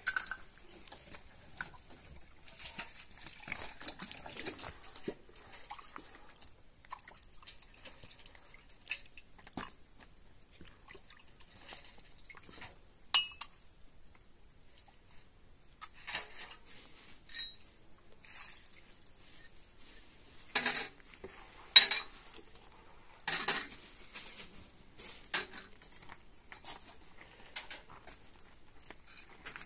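Scattered clinks, knocks and scrapes of pots, dishes and metal utensils being handled, with a little liquid dripping or pouring. One clink about halfway through rings briefly, and a few louder knocks come in the later part.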